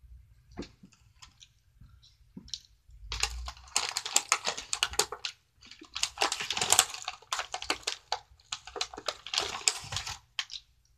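Crinkling and rustling of a Hostess Donettes snack packet as a hand rummages inside it, in dense crackly bursts starting about three seconds in, with a short break in the middle.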